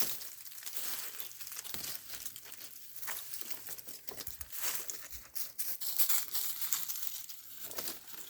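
Dry leaf litter and brush rustling and crackling, with many irregular short crunches.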